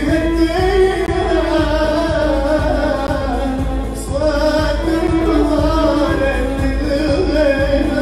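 A man singing an Arabic improvised melody into a microphone, accompanied by an electronic keyboard and an electric violin. The melody is held in long, wavering notes.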